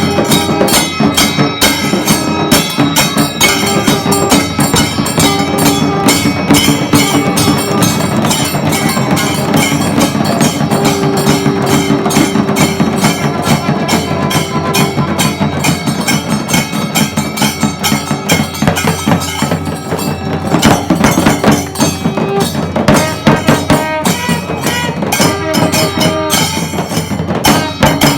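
Kailaya vathiyam, a traditional Tamil Shaiva temple ensemble, playing loudly: fast, dense drumming and clashing cymbals, with long held notes, most clearly about halfway through.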